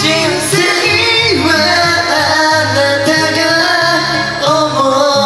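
Two men singing a song together into microphones over a backing track, karaoke-style.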